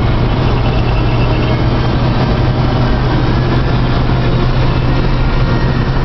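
A combine cutting wheat, heard from inside its cab: the diesel engine and threshing machinery make a steady, loud drone with a strong low hum. The machine is a 1979 International Harvester 1480.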